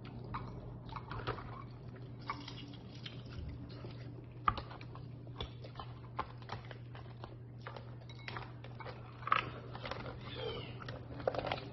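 Close-up eating sounds: chewing and biting on lobster meat, with irregular sharp clicks and cracks of lobster shell being handled and pulled apart. A steady low hum runs underneath.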